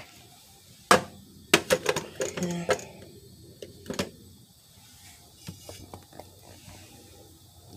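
Hard objects knocking and clattering as they are handled and set down: one sharp knock about a second in, a quick run of clatters around two seconds, and one more knock about four seconds in.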